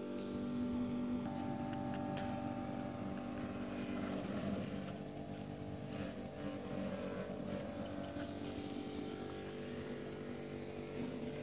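Yamaha Exciter 150's single-cylinder four-stroke engine idling steadily.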